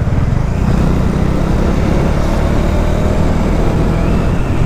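Bajaj Dominar single-cylinder motorcycle engine running steadily under way, with low wind rumble on the rider's microphone.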